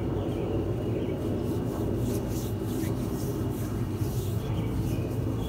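A hand rubbing oil into the bare skin of a leg, in repeated faint strokes about twice a second, over a steady low rumble.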